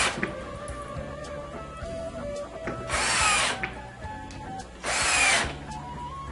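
Cordless drill driving screws into a cabinet panel in short bursts. One burst ends just as the sound begins, then two more come about three and five seconds in, each under a second long.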